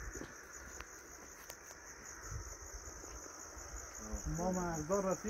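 Crickets chirping in a steady, high, even trill, with a person's voice speaking over it near the end.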